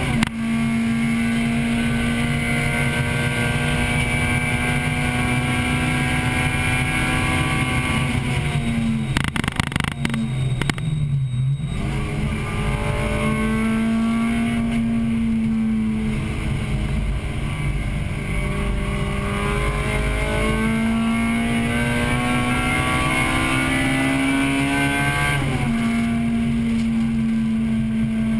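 1998 Acura Integra Type-R's four-cylinder engine heard from inside the car at racing pace, held at high revs. About a third of the way in the revs fall steeply, with a cluster of sharp clicks, braking and downshifting for a corner, then climb again. Near the end the pitch drops suddenly and holds, as at an upshift.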